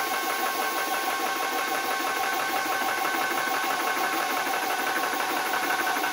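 Nomad 2 portable PCP air compressor running with its pump on: a steady, rapidly pulsing mechanical hum with its cooling fan, pumping high-pressure air into an air rifle as the bleed valve is slowly closed.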